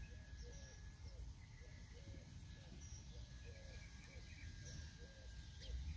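Faint outdoor ambience with birds calling: a low call repeating about twice a second and a few brief high chirps, over a low rumble.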